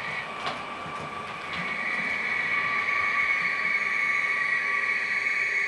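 H0-scale Brawa Twindexx Vario double-deck model train running with its sound decoder playing train running sounds: a steady high-pitched whine that grows louder about a second and a half in, with a couple of short clicks early.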